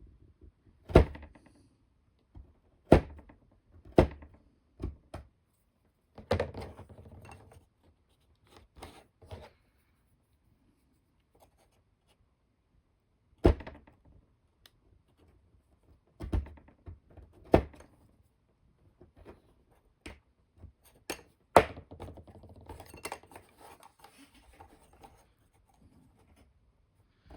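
Sharp knocks and taps of hand tools and small wooden parts being handled and set down on a workbench, about ten at irregular intervals, with light scraping and rustling between them.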